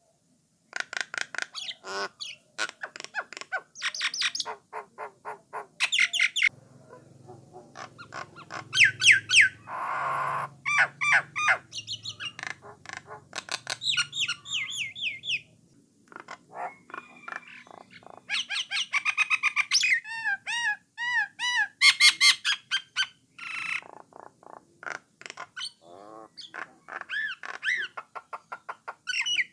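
A Jalak Nias starling singing a long, varied song: whistled notes, fast rattling trills and harsh squawks, with short pauses between phrases.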